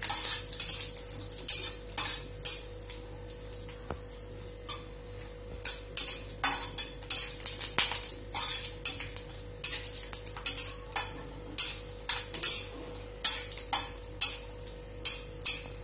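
Steel spatula scraping and knocking against an iron kadhai as dried coconut pieces are stir-roasted in a little oil until reddish, in quick irregular strokes about two a second over a light sizzle.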